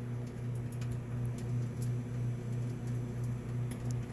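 Microwave oven running with a steady low hum, heating a bag of microwave pork rinds; a few faint ticks sound over it.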